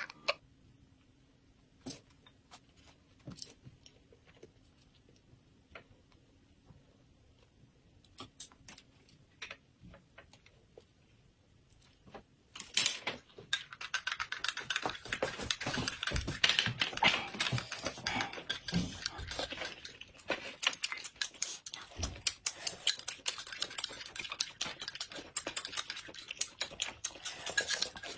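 Close-miked eating sounds. For the first half there are only a few soft clicks; from about halfway, dense rapid crackling clicks of chewing and sipping take over.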